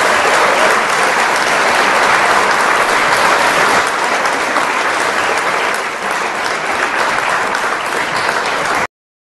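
Audience applauding: steady clapping that eases slightly and cuts off suddenly near the end.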